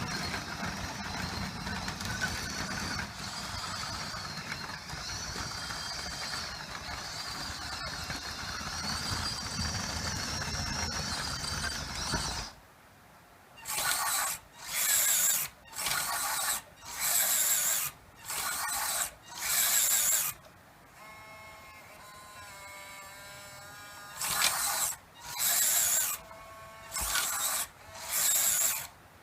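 Small electric gear motors of an RC track loader whirring and grinding: a steady run with a wavering high whine for about twelve seconds, then a string of short bursts, each about a second long with brief pauses between.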